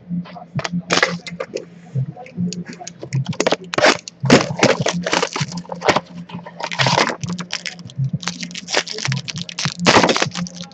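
Trading card packs and cards being handled: irregular crinkling of a pack wrapper and cards sliding and flicking against each other, with a few longer rustles.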